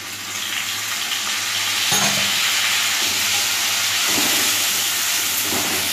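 Tomato puree sizzling loudly in hot oil in a steel kadai with fried potatoes, the hiss swelling over the first two seconds and then holding steady. A steel spatula stirs through it.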